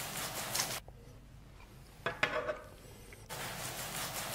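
A knife and fork cutting food on a plate, with the cutlery scraping against the plate in two bursts of about a second each, at the start and about three seconds in, and a few light clicks of metal on the plate in between.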